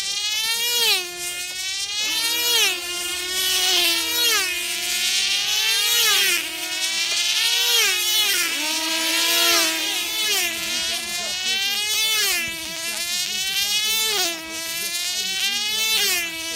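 Control-line F2C team-race model's small diesel engine at full throttle, lapping the circle: a high, buzzing whine that dips in pitch and comes back each time the model passes, roughly every second and a half to two seconds.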